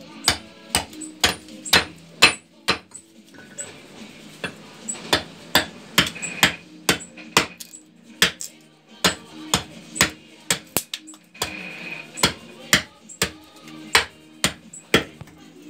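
Hammer blows on a wooden spoon blank being roughed out on a chopping block: sharp knocks, about two a second, with a short pause a few seconds in. Background music with steady tones plays underneath.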